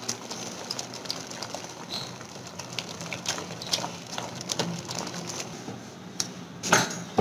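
Thick urad dal batter being beaten by hand against a steel bowl, in one direction: a wet, crackly slapping with many small irregular clicks and splats. One brief louder knock near the end.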